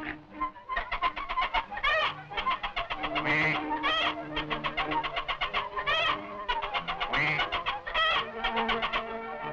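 Cartoon poultry sound effects: fast, rhythmic clucking and cackling, broken by a squawk about every two seconds, over held notes of the film's music score.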